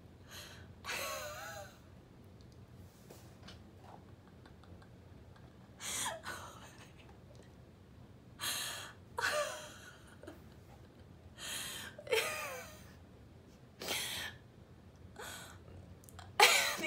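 A woman laughing in short, breathy bursts and gasps, with quiet pauses of a second or two between them and a louder burst near the end.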